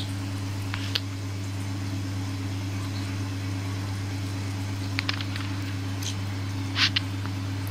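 A steady low mechanical hum, with a few faint short squelches and clicks as a half lemon is squeezed by hand into a steel mixer jar of coriander leaves; the sharpest click comes near the end.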